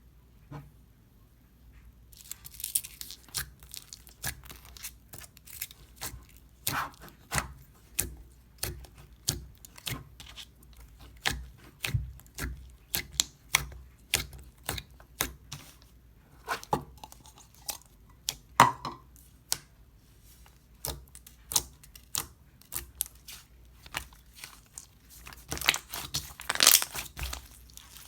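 Crunchy 'berry granola' slime being squeezed and pressed by hand, giving a run of irregular crackles and pops. It starts about two seconds in and gets denser near the end.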